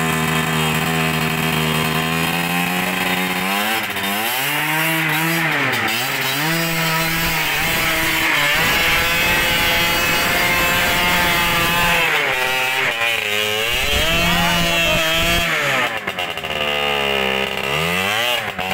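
A 125 cc two-stroke dirt bike engine revving hard under load on a steep trail climb. Its pitch rises and falls several times as the throttle is worked.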